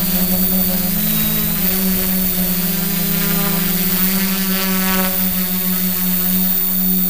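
Carbon-fibre-propped quadcopter's electric motors and propellers running in flight, heard from on board: a steady, loud drone with a strong low tone that wobbles in pitch about a second in and again around four to five seconds in.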